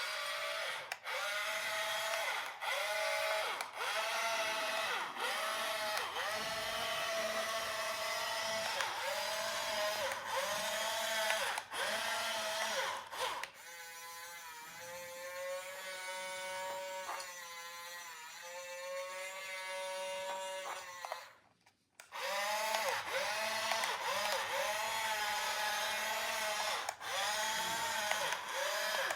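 Battery-powered electronic toy playing a repeating sound effect: a pitched electronic tone that dips and rises about once a second. Midway it switches to a different tone pattern, then cuts out briefly before the first pattern resumes.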